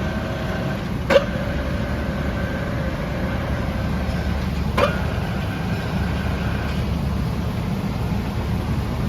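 Poreba TR100B/8M manual lathe running with a steady low hum while its cross slide is run on rapid traverse. There are two sharp clunks, about a second in and near five seconds. A faint whine runs with them and stops about seven seconds in.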